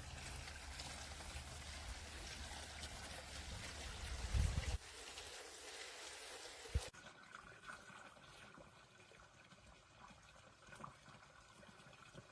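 Water trickling and splashing down a small preformed plastic garden waterfall. A dull thump comes about four and a half seconds in and a sharp click near seven seconds, after which the trickle is quieter.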